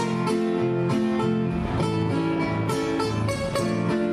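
Two acoustic guitars played together as a duet, a run of plucked notes changing every fraction of a second.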